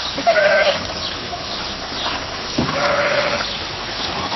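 Sheep bleating: two wavering calls, one right at the start and a longer one about two and a half seconds in, over a steady background hiss.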